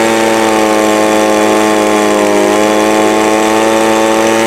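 Echo leaf blower's small two-stroke engine held at wide-open throttle, running steadily at high revs, with a slight dip in pitch about two seconds in. Its carburetor's high-speed mixture needle is being turned in small increments to cure a bog at full throttle.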